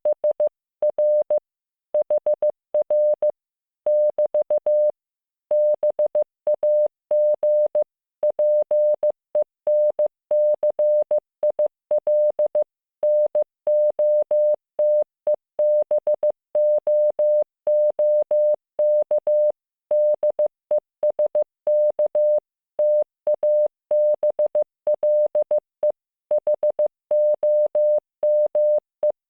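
Morse code (CW) practice tone from the LearningMorse training software: a single steady beep keyed on and off in dots and dashes, with short gaps between letters and longer ones between words, spelling out basic English words.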